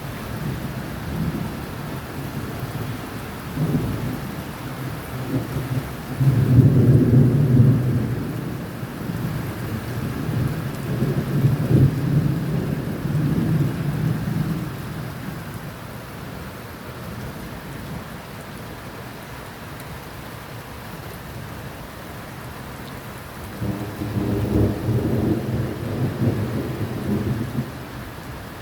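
Thunder rumbling in long, low rolls over steady rain. The loudest roll comes about six seconds in, another runs around twelve seconds, and a last one comes near the end.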